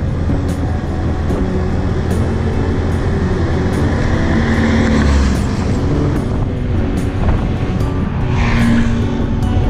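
Motorbike riding noise, a steady engine and road rumble, with an oncoming car passing by about five seconds in and a second swell of passing noise near the end, mixed with background music with a steady beat.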